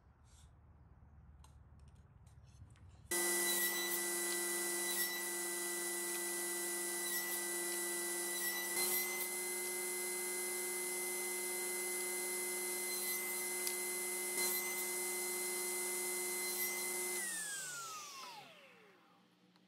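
Table saw running at steady speed, a constant whine with a few brief bumps. It comes in abruptly about three seconds in. Near the end the saw is switched off and the whine falls in pitch as the blade coasts down to a stop.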